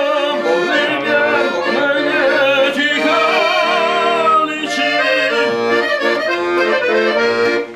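Accordion playing a lively tune with sustained chords under a melody, loud and continuous.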